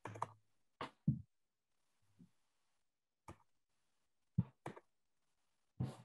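Irregular sharp clicks and soft thumps, about eight in six seconds, with dead silence between them, picked up by a microphone on a video call.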